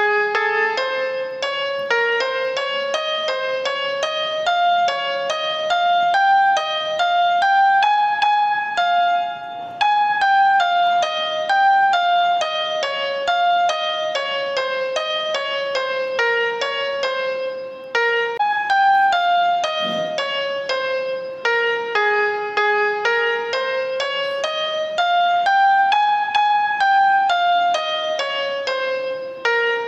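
Background music on a keyboard: a quick, even stream of notes whose melody climbs and falls in slow waves.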